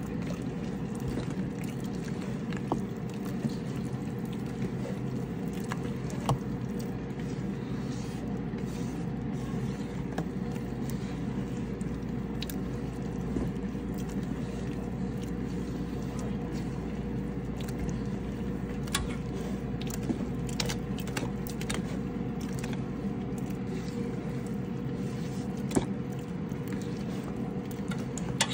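Steady low mechanical hum, with a few light clicks and knocks scattered through it.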